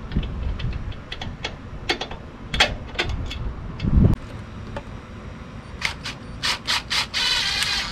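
Hand-work on ATV rear suspension: scattered sharp metal clicks and clinks of tools and parts being handled, a dull knock about four seconds in, and a quicker run of clicks ending in a short rattle near the end.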